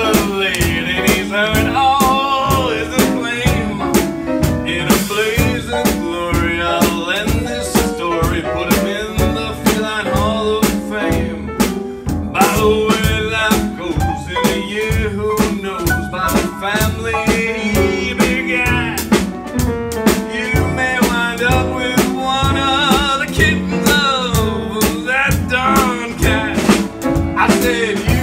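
Jazz trio of piano, guitar and drum kit playing an instrumental break, the drums keeping a steady beat under the melodic lines.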